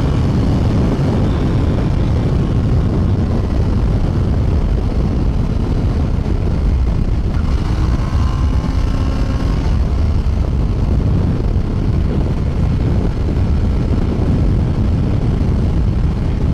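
Kawasaki Ninja 650R's parallel-twin engine running steadily at riding speed.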